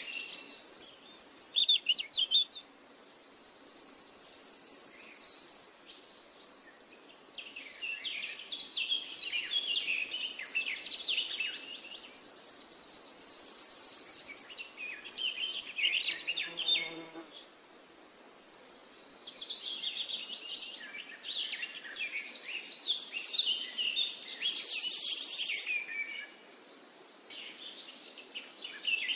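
Outdoor nature ambience: birds singing in short chirping, warbling phrases, with a high steady insect buzz that swells up three times for a few seconds each.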